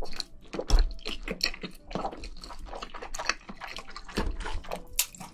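Close-miked wet chewing of black bean noodles and luncheon meat, a quick run of short smacking clicks.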